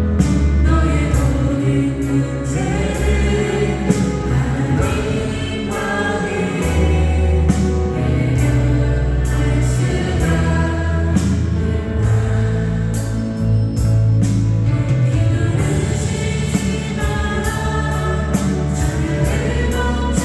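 A choir singing a Korean worship song over band accompaniment, with a bass line and a steady cymbal beat.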